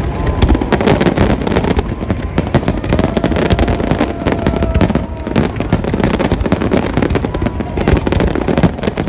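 Fireworks display: a dense, continuous barrage of bangs and crackling from many shells bursting at once.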